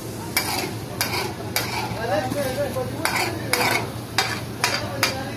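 Metal spatula scraping and striking a karahi, about two strokes a second starting about half a second in, over the steady sizzle of food frying in oil.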